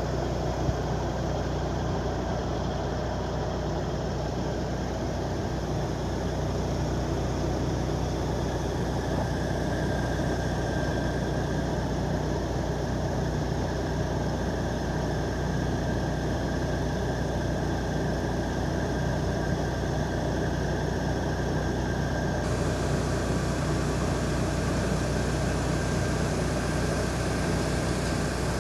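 Crane's diesel engine running steadily, with an even low hum.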